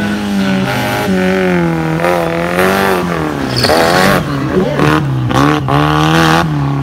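Off-road 4x4 race car engine revving hard under load, its pitch rising and falling as the driver works the throttle, with short bursts of rushing noise from about three and a half seconds in.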